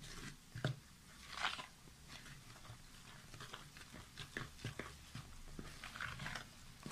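A hand mixing and squeezing crumbly rice-flour dough, wet with jaggery syrup and thick coconut milk, in a bowl. The sound is irregular short squishes and crunches of the damp flour.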